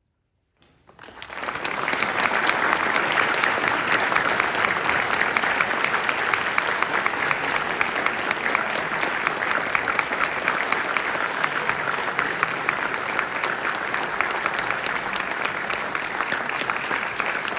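Audience applauding: clapping breaks out under a second in, swells within about a second and holds steady.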